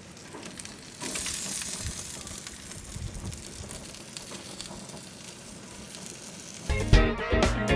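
Chicken wings sizzling with small crackles on a gas grill, a steady hiss that grows stronger about a second in. Guitar music cuts back in near the end.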